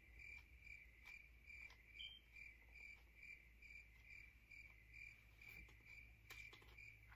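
Faint cricket chirping, an even, high chirp repeating about three times a second.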